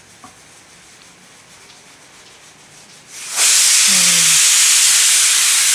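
Stovetop pressure cooker's weight valve lifting about three seconds in and venting steam with a sudden, loud, steady hiss: the cooker's whistle, the sign it has come up to full pressure.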